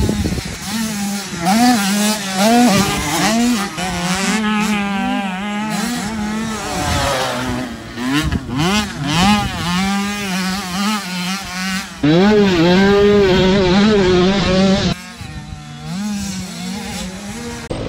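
Motocross dirt bike engine revving hard and easing off over and over as it is ridden, its pitch rising and falling repeatedly. The sound changes abruptly twice, getting louder about two-thirds of the way through and dropping back a few seconds later.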